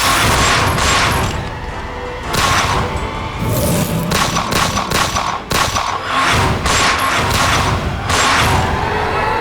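Action-scene sound effects: a rapid string of gunshot-like blasts and impacts, several close together at times, over dramatic background music.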